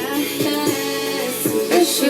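Background hip-hop/R&B music with sung vocals and a beat.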